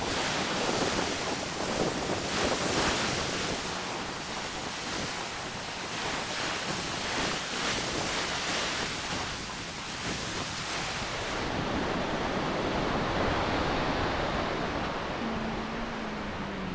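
Small sea waves breaking and washing up a sandy beach, swelling and easing every second or two, with wind on the microphone. About two-thirds of the way in the sound turns duller as the high hiss drops away.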